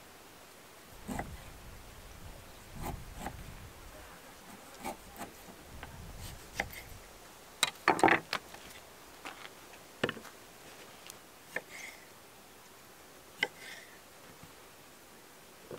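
Kitchen knife slicing radish and cherry tomatoes on a wooden cutting board: scattered sharp taps and knocks of the blade on the wood, with a quick run of loud knocks about eight seconds in.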